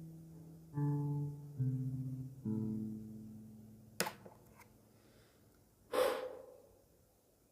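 Ngoni harp plucked, three last notes ringing out and slowly fading. A sharp click follows about four seconds in, then a short breathy rush of sound near six seconds.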